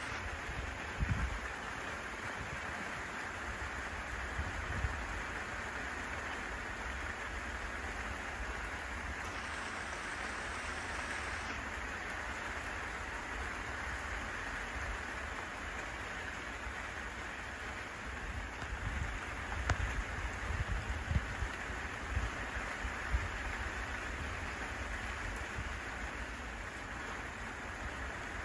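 Steady spring rain falling, an even hiss, with a few short low bumps around the start and a cluster of them about two-thirds of the way in.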